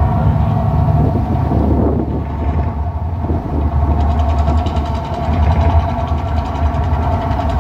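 Mirage volcano show's effects soundtrack over loudspeakers: a loud, deep, steady rumble with a held drone above it. A fast fluttering pulse joins about four seconds in.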